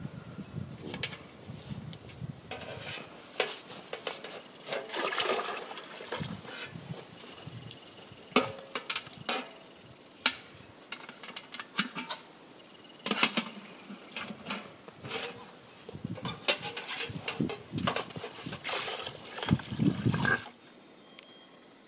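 Maple sap being poured from metal sap pails into a plastic bucket: rushing liquid mixed with irregular clanks and knocks of the metal pails and their lids as they are handled. It stops abruptly near the end.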